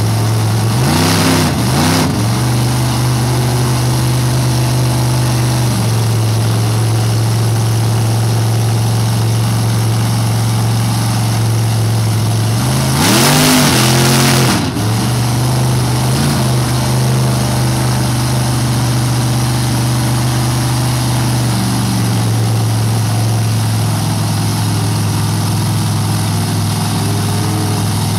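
Big engines of lifted mud trucks idling with a steady low rumble, blipped up and down about a second in, then revved hard for about two seconds near the middle as the tires spin in the mud, before settling back to idle.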